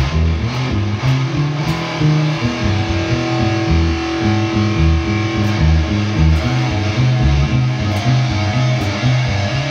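Improvised instrumental music from a bass and guitar duo: a busy, moving bass line under guitar, with one long held note for about three seconds near the middle.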